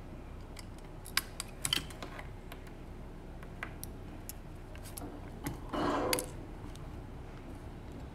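Faint clicks and taps of hands handling a smartphone: a few sharp clicks between one and two seconds in, scattered small ticks, and a brief rustle about six seconds in.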